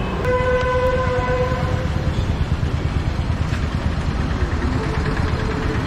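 Busy road traffic with a vehicle horn held for about a second and a half near the start, over a steady low rumble of traffic. A fainter horn sounds briefly near the end.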